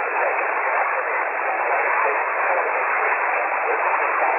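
Yaesu HF transceiver receiving on 40 m lower sideband (7.097 MHz) with no station on the frequency: steady band-noise hiss, cut off sharply above about 3 kHz by the receive filter.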